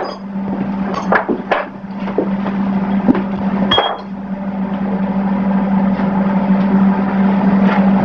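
A steady hum at one pitch, with a few light clicks and clinks from parts being handled, mostly in the first couple of seconds and again near four seconds in.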